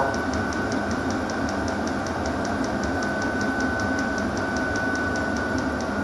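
Diesel air heater running with its fan still on high: a steady whir with a faint whine, and the fuel dosing pump ticking evenly, about five times a second.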